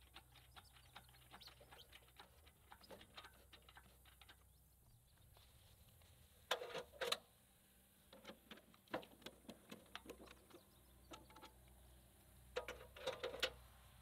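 Faint, irregular clicking from a hand-pumped engine hoist, its chain and lifting strap straining as they raise and roll a heavy log on a sawmill bed. Two short bursts of louder knocks and creaks come about halfway through and again near the end.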